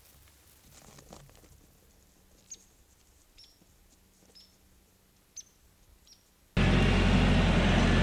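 A few faint, short bird chirps over quiet outdoor background. About six and a half seconds in, a loud, steady noise with a low hum cuts in abruptly, then stops just as abruptly almost two seconds later.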